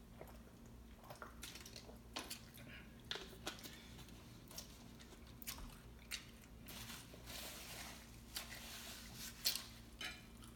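Quiet mouth sounds of eating and drinking: swallows of water from a plastic bottle, then soft chewing, with scattered small clicks.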